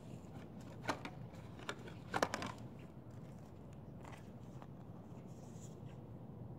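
A few short plastic clicks and rattles from handling a plastic hair-dye applicator bottle while mixing the dye, the loudest a quick cluster about two seconds in, over a faint steady low hum.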